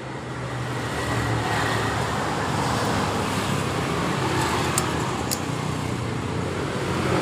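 Steady motor-vehicle noise, building over the first second or so and then holding, with a low hum beneath a rushing noise; it cuts off suddenly near the end.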